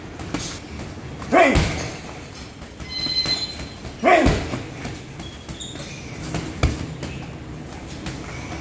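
Boxing gloves striking heavy punch bags: scattered thuds, three of them loud. The first two are each joined by a short yelp falling in pitch, and there is a brief high squeak about three seconds in.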